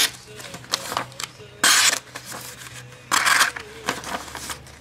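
KA-BAR Becker BK13 Remora's small hollow-ground 440A stainless blade slicing through a hand-held sheet of paper: three short slicing strokes about a second and a half apart, with faint paper rustling between. A sharp edge cutting the paper cleanly.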